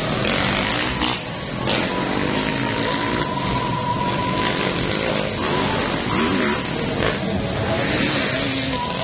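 Motocross dirt bike engines revving and running around the track, rising and falling in pitch as riders go through the course.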